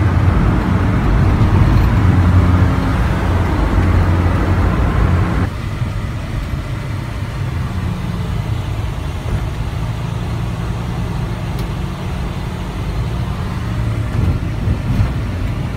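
A vehicle engine running steadily with a low hum. The sound changes abruptly about five and a half seconds in, where the upper hiss drops away.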